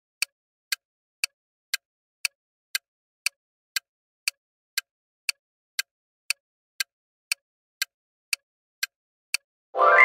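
Quiz countdown-timer ticking sound effect: sharp, even ticks, two a second, about twenty in all. Near the end a bright, ringing answer-reveal sound effect starts suddenly and fades.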